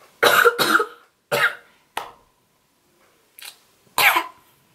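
A woman coughing into her hands: a quick run of coughs in the first second and a half, then a single loud cough about four seconds in.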